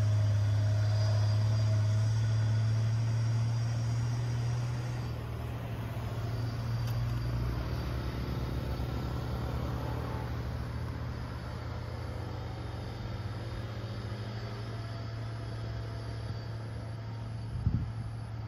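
Diesel cargo truck's engine pulling hard up a steep climb, a steady deep drone that fades as the truck moves away. After that comes a lower traffic rumble of cars passing, with a couple of short thumps near the end.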